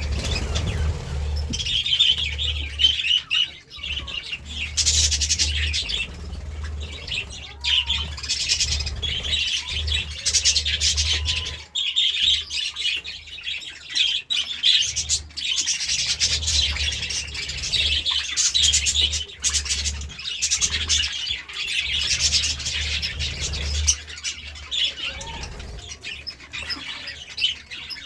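Budgerigars chirping and chattering in a steady run of quick, high chirps, with a low rumble underneath.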